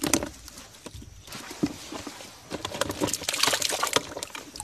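Small crucian carp flapping and knocking against a plastic tub, then splashing into the water as the tub is tipped out, with water sloshing. The splashing is densest a little past halfway through.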